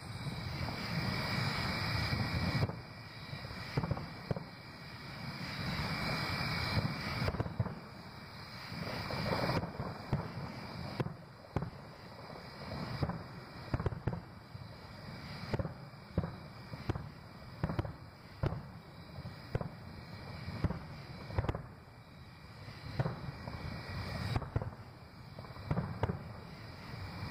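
Distant aerial fireworks shells bursting in a long series of booms, about one a second in the second half, over a steady haze of noise.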